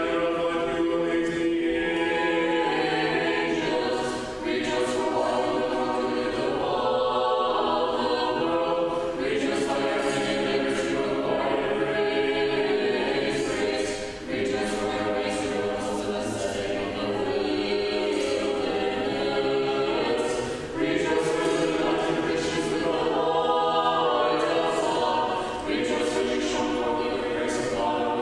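Choir singing unaccompanied Russian Orthodox chant for an akathist service, in long held phrases with short breaks between them.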